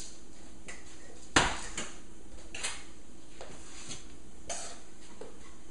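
A metal utensil knocking and scraping against a stainless-steel skillet while ground meat is served out of it: one sharp knock about a second and a half in, then several lighter clinks.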